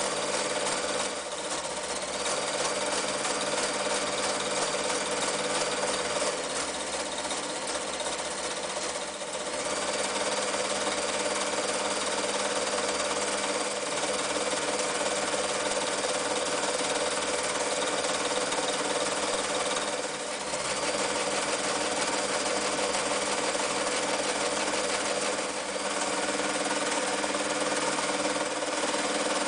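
Janome New Home 552 electric sewing machine running steadily, its needle stitching zigzag and decorative stitches through fabric, easing off briefly a few times.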